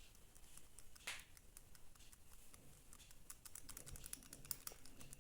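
Faint, light clicks and ticks of small parts being handled, one a little louder about a second in, then quicker and denser clicking over the last two seconds.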